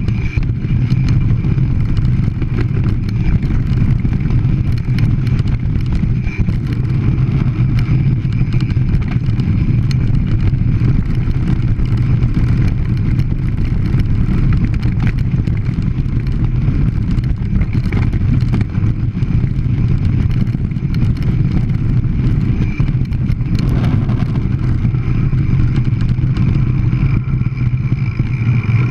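Mountain bike descending a rough, stony track at speed: a steady, loud rumble of wind and tyre noise on the camera microphone, with frequent rattles and knocks from the bike jolting over the stones.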